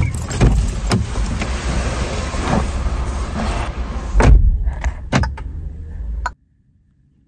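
Someone getting out of a car at its open door: clunks, knocks and rustling as things are handled at the seat, the loudest knock about four seconds in, over a low rumble. The sound cuts off abruptly about six seconds in.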